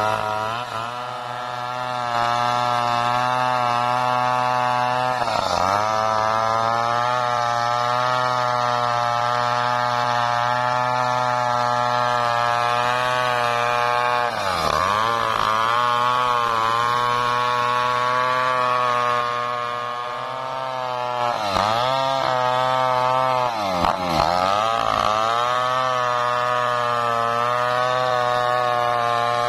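STIHL two-stroke chainsaw running hard while ripping lengthwise through a dry waru log with a dull chain. The engine pitch sags briefly about five times and climbs back.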